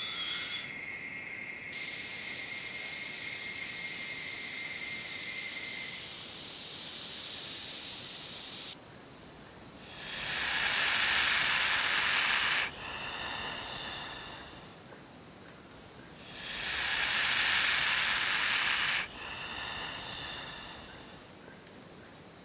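Snake hissing: a long steady hiss, then two loud hisses of about three seconds each, each followed by a softer, shorter hiss.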